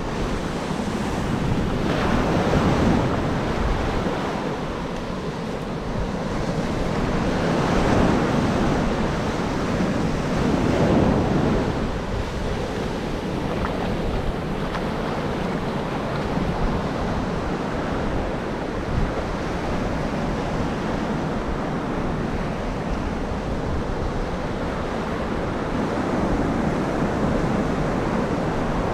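Ocean surf breaking and washing up the beach in slow surges, with wind buffeting the microphone.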